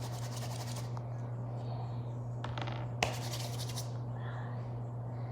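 Crinkly, scratchy rustling in several short bursts as Cheetos are handled, with a sharp click about three seconds in. A steady low electrical hum runs underneath.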